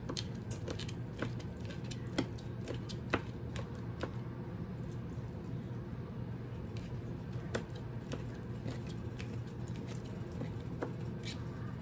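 Kitchen knife chopping crawfish tails on a plastic cutting board: light, irregular taps, over a steady low hum.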